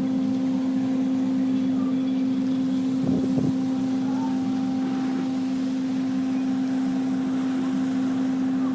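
Steady low mechanical hum at one constant pitch, with a brief louder noise about three seconds in.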